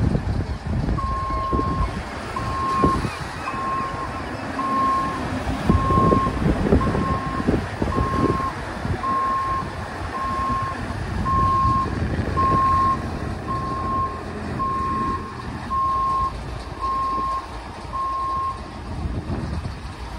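A vehicle reversing alarm beeps at one steady pitch, about once a second, and stops near the end. Underneath are the low running of the launch vehicle's engine and the wash of the sea.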